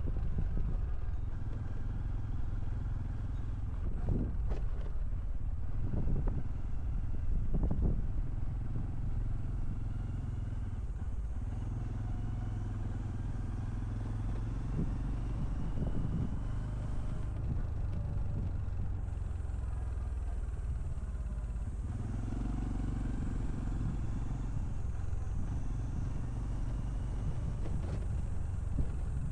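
Honda CT125 Hunter Cub's 125 cc air-cooled single-cylinder engine and exhaust while riding, the engine note rising and falling with the throttle and gear changes.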